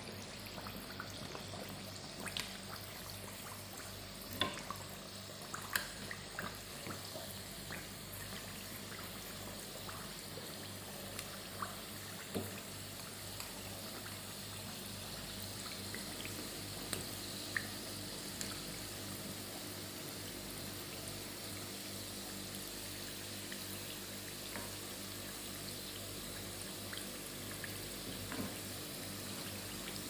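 Balushahi rounds deep-frying in hot oil in a black pan, the oil sizzling and bubbling steadily. A few sharp light clicks come from the metal spoon used to turn them.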